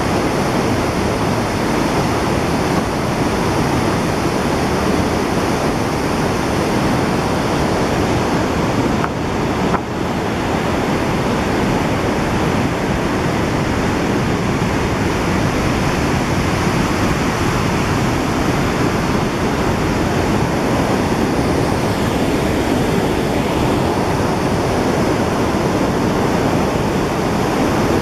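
Mountain river in full flow, the Baspa rushing in whitewater rapids over and around boulders: a loud, steady rush of water.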